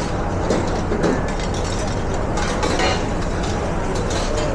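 Restaurant kitchen line during service: metal utensils clinking and scraping against pans in scattered clatters, with a denser run of rattling about two and a half seconds in, over a steady low hum of kitchen extraction and burners.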